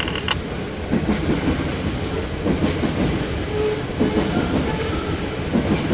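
Loaded coal hopper cars of a freight train rolling past, a steady rumble with the clickety-clack of wheels over the rail joints.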